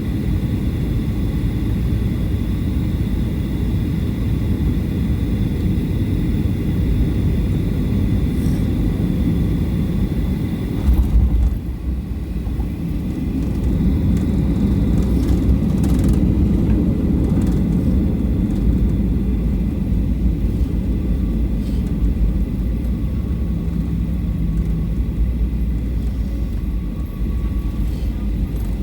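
Boeing 737-800 engines and airflow heard as a steady noise. About eleven seconds in a sudden thump marks the touchdown, followed by a deep rumble of the wheels rolling on the runway as the jet decelerates.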